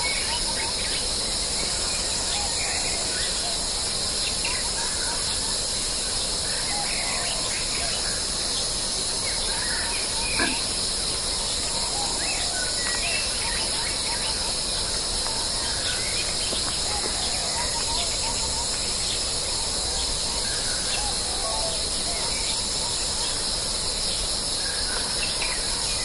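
Steady, high-pitched chorus of insects in forest, with scattered short bird chirps and calls throughout and one brief louder call about ten seconds in.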